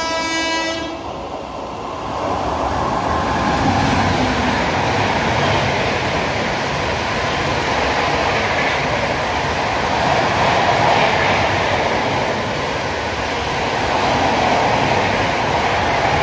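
A train horn sounds and cuts off about a second in. An LHB passenger train hauled by a WAP-7 then passes close by at about 130 km/h: a loud, steady rush of wheels and coaches that builds over the first few seconds and holds.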